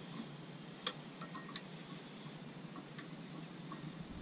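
Light metallic clicks and ticks of bolts being handled and threaded by hand into a clutch back plate on a small engine: one sharper click about a second in, then a few lighter ones.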